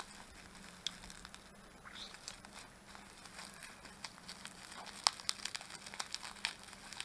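Cable packaging being handled: faint crinkling and scattered small clicks, sparse at first and busier from about halfway through.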